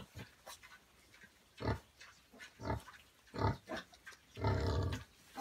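Pigs grunting: a few short grunts spaced about a second apart, then a longer one near the end.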